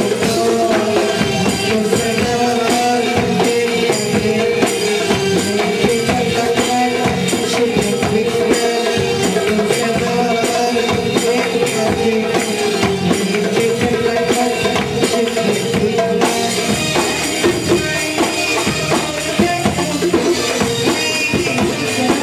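Live belly-dance band music: hand percussion with tambourine-like jingles keeps a steady beat under a held melody line.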